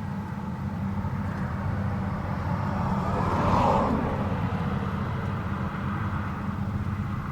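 Rostselmash Vector 420 combine harvester running with a steady low engine rumble. The sound swells louder and brighter for about a second, midway through.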